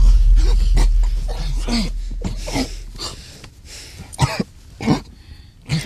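A man's muffled coughing and choking gasps as a cloth is clamped over his nose and mouth. Under it is a deep low boom that fades away over the first few seconds, and there are a few sharp knocks in the last two seconds.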